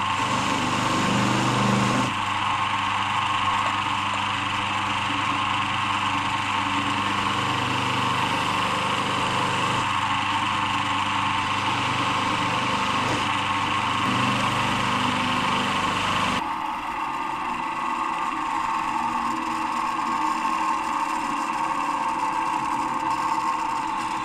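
Electric polishing machine running steadily with a buffing mop while a metal engine fixing is polished on it, a constant motor whine; the low part of the hum drops away about two-thirds of the way through.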